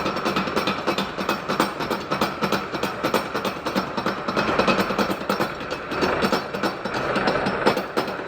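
Workshop machinery running with a dense, rapid, irregular mechanical clatter of metal parts.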